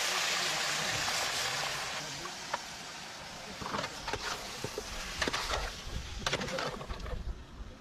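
Raw meat sizzling loudly in hot oil and onions in a metal pot, the hiss fading after about two seconds. A metal ladle then stirs, clinking and scraping against the pot several times.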